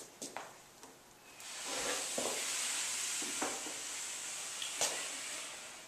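A few short knocks, then a steady hiss lasting about four seconds, with a click or two in it, fading away near the end.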